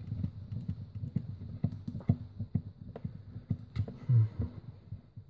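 Irregular small clicks and taps of a hex driver and needle-nose pliers against plastic RC car suspension parts as a shock link is fitted into place.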